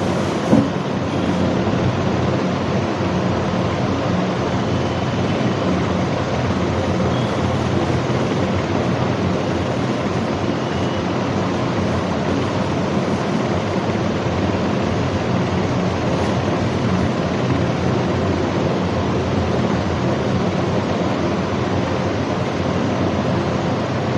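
Steady rushing background noise with a faint hum under it, unchanging throughout, and one sharp click about half a second in.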